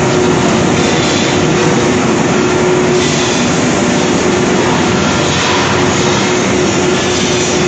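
QPW40 shot blasting machine for steel gas cylinders running: a loud, steady, dense rushing noise with a constant hum underneath.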